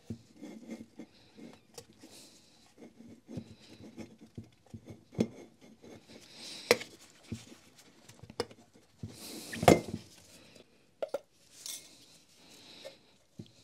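Irregular metallic clicks and knocks of a rotary hammer's aluminium gear housing and its internal crank parts being handled and shifted while they are lined up to seat together. The loudest knock comes about ten seconds in.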